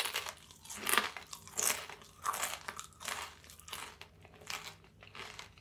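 A veiled chameleon chewing a grasshopper: a run of crunches, about three every two seconds, fading a little.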